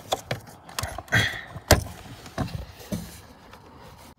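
Scattered short clicks and knocks from hands handling the plastic fuses and relays in a Kenworth T800 fuse panel while checking for a blown fuse, the loudest a little under two seconds in, then quieter near the end.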